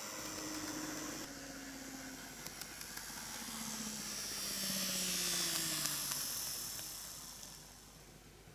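Small motor of an N-gauge model electric locomotive (KATO EF81 300) running on plastic track: a faint whine with wheel and rail hiss and a few light clicks, growing louder as it nears, then sliding down in pitch and fading away as it slows to a stop near the end.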